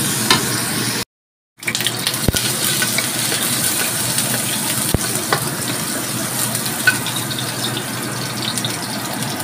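Stir-frying in a steel wok: vegetables, then chopped garlic sizzling in hot oil, stirred with a wooden spatula that gives scattered light scrapes and taps against the pan. The sound cuts out completely for about half a second about a second in.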